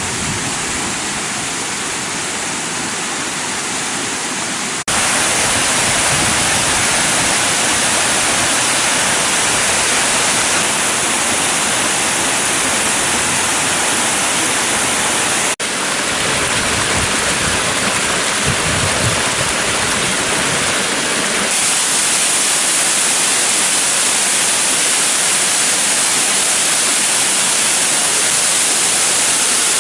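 Waterfall rushing: a steady, loud wash of falling water. The sound jumps abruptly about five seconds in, getting louder, and shifts again about fifteen seconds in.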